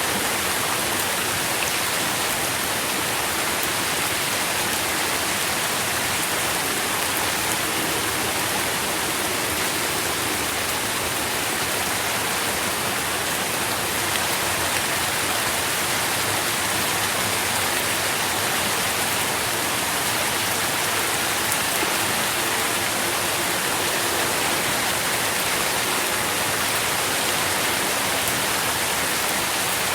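Steady rain falling, an even hiss of many drops with no single hits standing out.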